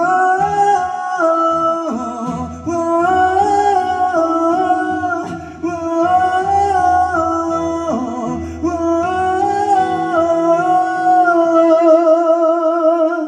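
Live band music: a solo singer sings long, held phrases over band accompaniment. A final sustained note with a wide vibrato fades out near the end.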